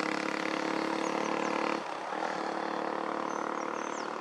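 Ashok Leyland bus's diesel engine running as the bus approaches at low speed; its note drops suddenly a little under two seconds in as the throttle comes off, then runs on more quietly. Small bird chirps sound faintly over it.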